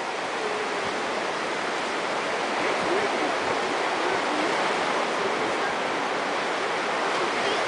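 Steady rush of ocean surf breaking and washing up the beach.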